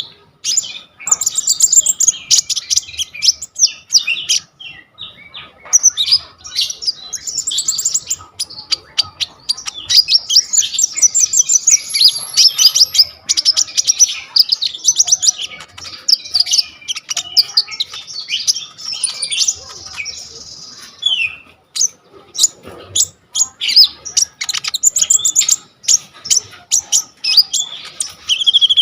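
A konin songbird singing a long, rapid, chattering song of quick trills and sharp high notes, with only brief pauses. The song is packed with phrases mimicked from other birds.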